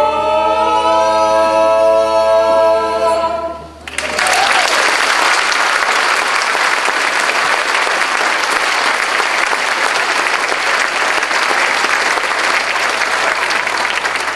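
A male barbershop chorus holds the final a cappella chord and cuts it off sharply about four seconds in. The audience then breaks into steady applause.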